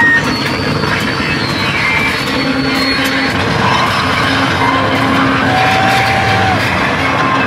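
Harsh noise music played live on effects pedals and mixers through amplifiers: a dense, loud wall of distorted noise with short sliding tones and crackling clicks.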